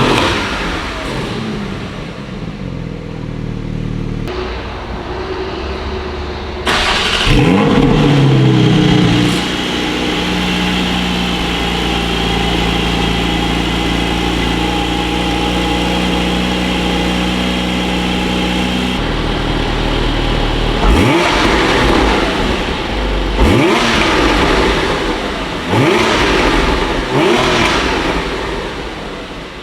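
Porsche 718 Cayman GT4's 4.0-litre flat-six exhausting through Akrapovic titanium OPF link pipes and the stock muffler, being revved. The revs climb sharply and fall away, are held at a steady pitch for about nine seconds in the middle, then come as four quick blips near the end.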